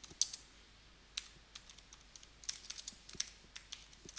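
Computer keyboard keys being typed: irregular clicking keystrokes, a few at first, then a quicker run from about halfway through.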